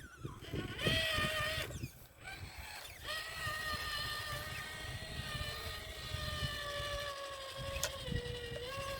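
RC crawler truck's electric motor and gears whining under power as it drives over rough ground, with low rumbling from the tyres. The whine holds a steady pitch, drops out briefly about two seconds in, and sags a little in pitch near the end.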